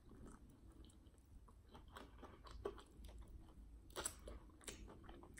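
Faint close-up chewing of fried chicken wings: scattered soft wet smacks and clicks of the mouth, with two louder ones near the end.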